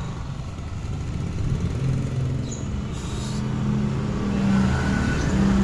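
A motor vehicle engine running steadily, its pitch and loudness rising slightly in the second half.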